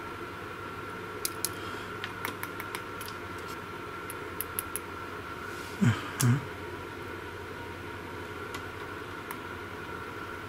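Small sharp clicks of metal crocodile clips and a test probe handled against a car battery's terminals, over a steady faint high whine. About six seconds in come two short, low vocal sounds.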